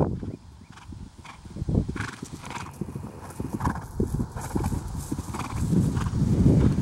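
Hoofbeats of a Trakehner horse cantering on grass: a run of dull, uneven thuds that are loudest near the start and again near the end as the horse passes close by.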